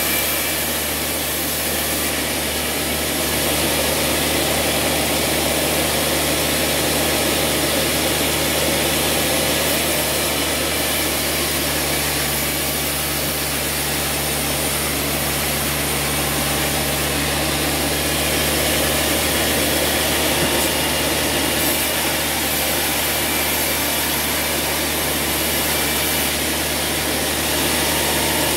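Large sawmill band saw running steadily, with a constant low hum and machine noise, as timber is fed through the blade.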